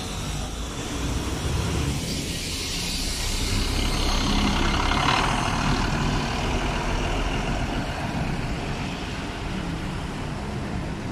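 City bus driving past close by over steady street-traffic noise. Its engine rumble swells to its loudest about five seconds in, with a brief hiss at the peak.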